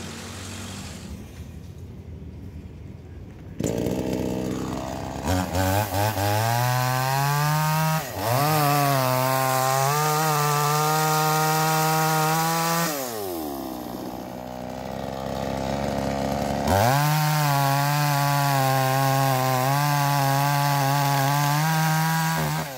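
Two-stroke petrol chainsaw, freshly rebuilt with a new piston and cylinder, running. After a few quieter seconds it revs up about four seconds in with a few short blips, then runs at full throttle cutting through logs. It drops back to idle a little past halfway, then revs up and cuts again until the end.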